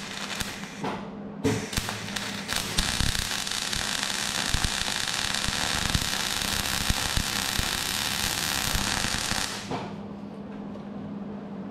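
Welding arc crackling as steel is welded on a Land Rover Series chassis dumb iron. A short burst stops about a second in, then a long steady run stops near the end, leaving a low steady hum.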